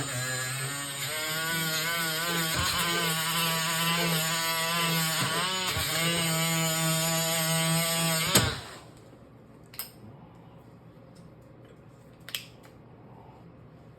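Handheld power tool sanding the metal of a wheelchair frame, its motor whining steadily with small dips in pitch under load, then cut off with a knock about eight seconds in. Two light clicks follow.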